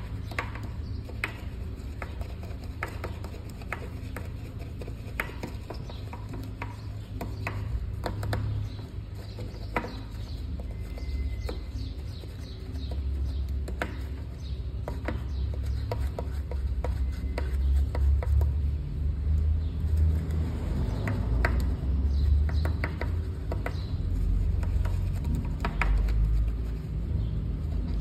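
A wheel brush scrubbing a foam-covered alloy wheel, with scattered sharp clicks and taps as it works between the spokes. A low rumble underneath grows louder about halfway through.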